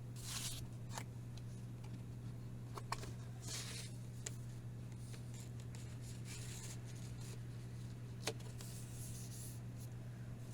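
Handling of album packaging: short rustles and a few sharp clicks, over a steady low hum.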